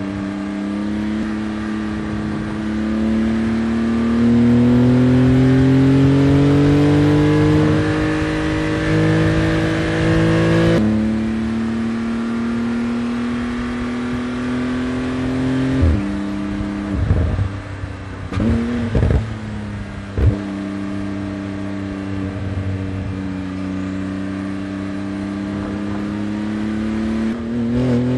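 Porsche 911 GT2 RS's twin-turbo flat-six under hard acceleration, its pitch climbing for about ten seconds and then dropping suddenly as it shifts up. It holds a steadier pitch, breaks off sharply several times a little past the middle, and climbs again near the end.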